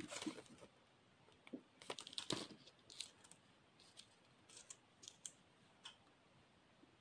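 Soft rustling and crinkling of a folded paper toy leaflet being handled, in short bursts mostly in the first half, followed by scattered light ticks and taps as small flat plastic toy pieces are handled.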